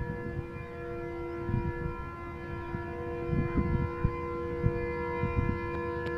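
Air horn of an approaching GMCU-15 diesel locomotive held as one long steady chord of several notes, with gusts of wind buffeting the microphone underneath.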